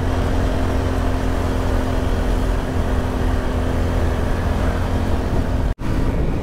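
Vehicle engine running steadily while driving, under road and wind noise, with a steady low hum; a split-second dropout near the end.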